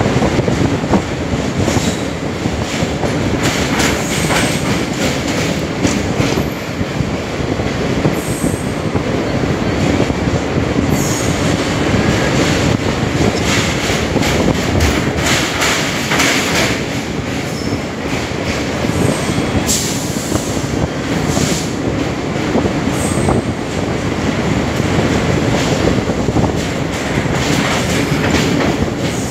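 A train running on rails, a loud steady rumble with wheel clatter and repeated brief high-pitched squeals of the wheels.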